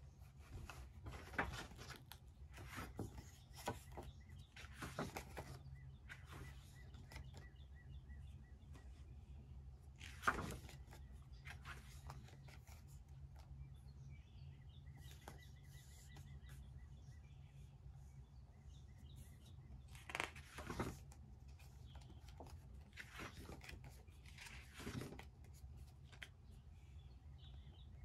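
Faint desk sounds of paper and pen: intermittent rustling and scratching of pages, with a sharper tap about ten seconds in, over a low steady hum.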